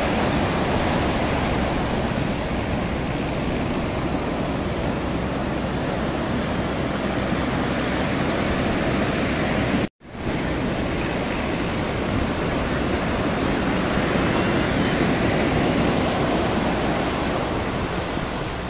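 Surf breaking and washing up the beach: a steady, dense rush of waves, cut off for an instant about halfway through.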